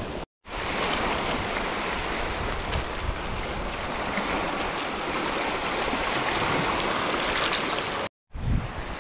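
Small waves washing over the rocks of a lakeshore, recorded close: a steady hiss of breaking and splashing water that starts abruptly about half a second in and cuts off near the end.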